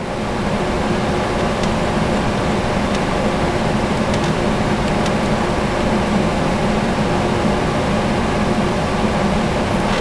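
Climate Master water-source heat pump unit running with a steady machine hum that holds a constant low tone.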